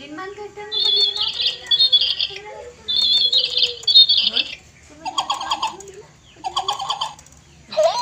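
Battery-operated toy cage bird chirping: bursts of rapid, high, trilling electronic chirps with short gaps between them, about four bursts in all.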